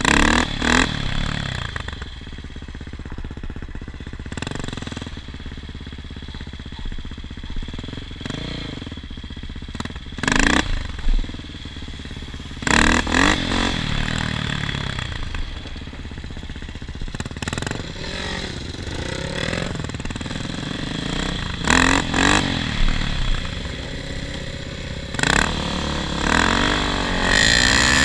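A small engine running and revving up and down repeatedly. It is broken by several loud clattering jolts.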